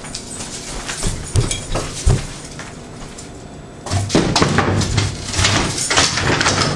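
A few sharp knocks, then from about four seconds in a loud spell of wooden clattering and rattling as a wooden easel and its canvas are grabbed and pulled away.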